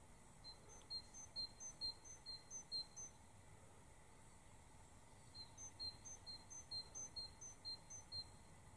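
A small songbird singing faintly: a quick two-note phrase, high then lower, repeated about three times a second in two bouts with a pause of about two seconds between them.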